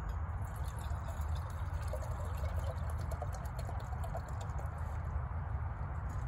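Water being poured into a billy pot, with faint gurgling about two to four seconds in, over a steady low rumble.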